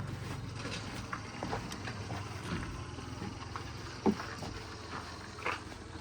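Diesel engine of earth-moving machinery running with a low steady hum, with scattered knocks and clinks and one sharp knock about four seconds in.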